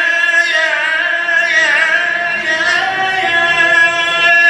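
A man singing a long, ornamented held note in the style of Iraqi Shia devotional chant. The pitch wavers, then steps up about three seconds in.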